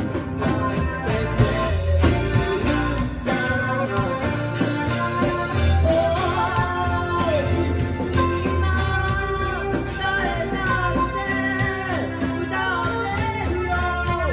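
Live band music: a singer with electric guitar, bass and drums playing a Japanese pop-rock song.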